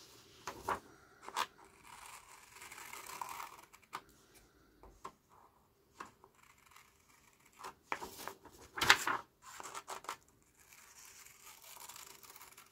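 Scissors cutting a sheet of A4 paper along a pattern outline: scattered snips and paper rustling, loudest about nine seconds in.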